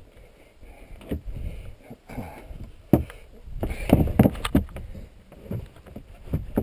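Irregular thumps and scuffs from a plastic kayak shifting on snow and its paddle being set down against the hull, with a cluster of knocks about four seconds in.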